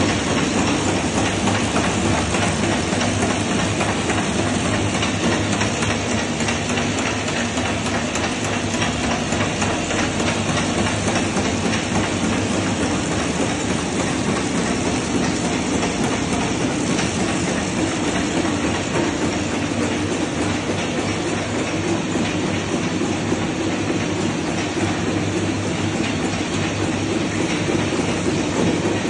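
Automatic flow-wrap packaging machine running steadily at speed as it wraps and seals football trading cards in film packs: an even, continuous mechanical noise with no pauses.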